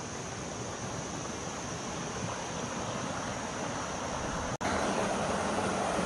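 Steady rush of a mountain stream running high and spilling over rocks. The sound cuts out for an instant about four and a half seconds in and comes back louder.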